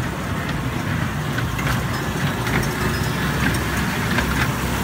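Kiddie ride train running along its track, heard from aboard: a steady low rumble with scattered light clicks.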